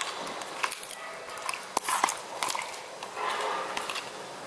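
Thick slime studded with small plastic pieces being squeezed and kneaded by hand, giving irregular sticky squelches with sharp little clicks and pops as it stretches and pulls apart.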